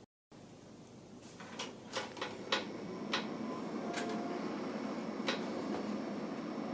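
A desktop PC being handled and switched on: a run of sharp plastic and metal clicks, with a steady whir of the computer's fans coming up after about a second.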